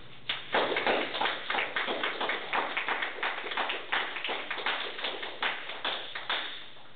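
A small group clapping, a quick irregular patter of individual claps lasting about six seconds and fading near the end.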